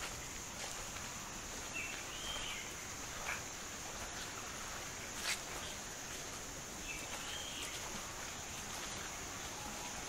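Tropical rainforest ambience: a steady high-pitched insect drone, with a bird giving a short rising-and-falling call twice, about five seconds apart, and scattered footsteps on the path.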